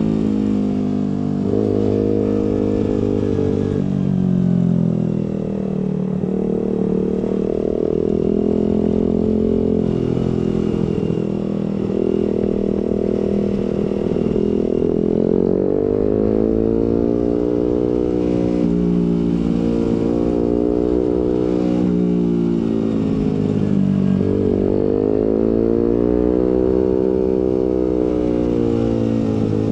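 Suzuki GSX-R150's single-cylinder engine through an aftermarket Prospeed exhaust and Proliner header while riding, its pitch rising and falling smoothly as the revs climb and drop, with one brief sharp dip in revs near the end.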